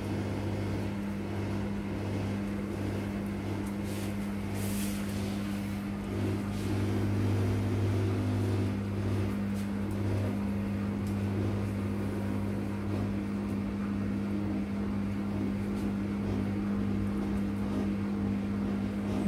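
CATLINK Scooper self-cleaning litter box running its drum motor, a steady low hum as the drum slowly rotates to level freshly added litter. A brief rustle comes about five seconds in.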